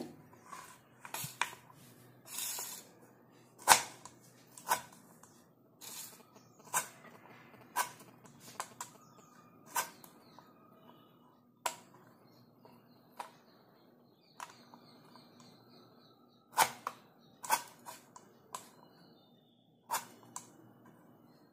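Serrated knife chopping watermelon rind into small cubes on a cutting board: sharp knocks of the blade against the board, irregular, roughly one a second.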